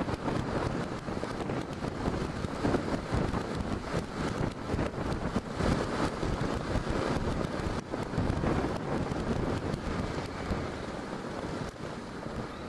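Wind rushing and buffeting over a helmet-mounted camera microphone while riding at speed, with the Honda NC700X motorcycle's engine and road noise underneath.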